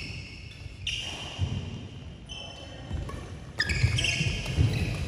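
Badminton doubles rally: court shoes squeaking sharply on the court floor four or five times, mixed with quick racket hits on the shuttlecock and thuds of footwork, busier in the second half.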